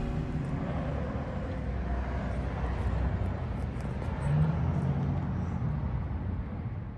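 Outdoor street ambience: a steady low rumble of traffic, swelling slightly about four seconds in.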